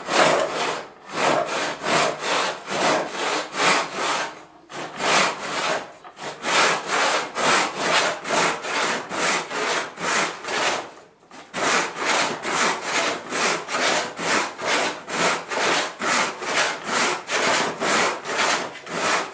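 A never-sharpened four-teeth-per-inch Peugeot rip saw cutting along the grain of a 6 cm thick block of dense jala (West African mahogany) by hand, in steady rasping strokes about two a second. The strokes break off briefly about 1 and 4.5 seconds in, and for about a second around 11 seconds in.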